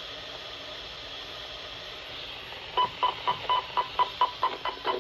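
Weather radio broadcast through a receiver: a steady hiss of static, then about three seconds in a rapid string of short beeps, about four a second.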